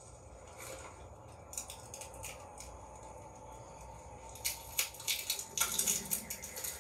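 A run of sharp crackling clicks and rustles, sparse at first and thickening into a dense burst in the last two seconds, over a faint low hum.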